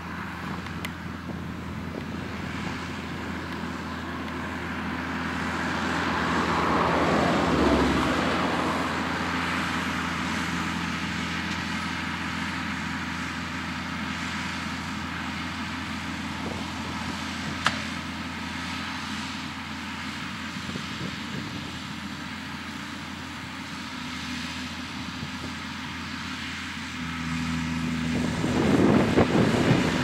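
Deutz-Fahr tractor engine running steadily as it pulls a McHale F5500 round baler along a straw swath. Wind gusts on the microphone about a quarter of the way in and again near the end, and there is a single sharp click a little past halfway.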